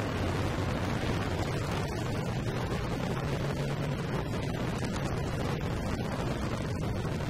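Harley-Davidson motorcycle's V-twin engine running steadily while riding slowly in traffic, heard as a constant low rumble, with a rush of wind noise on the bike-mounted microphone.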